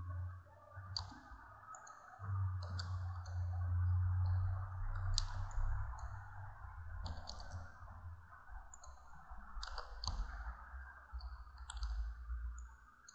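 Computer mouse button clicks, each press followed by a softer release, about one every second or two as construction points are placed on screen, over a low steady hum.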